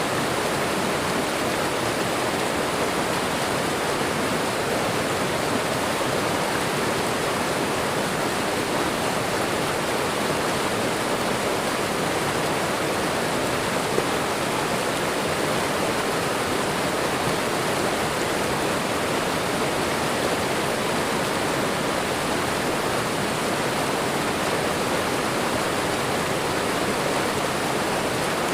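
Waterfall and running water: a steady, even rush of falling and flowing water.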